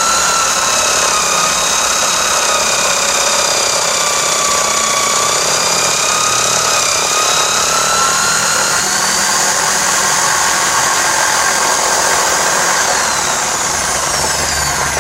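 Electric drill spinning a homemade cylindrical drum sander, running steadily with a whining tone and a gritty rasp as it sands wood. Near the end the whine falls in pitch as it slows.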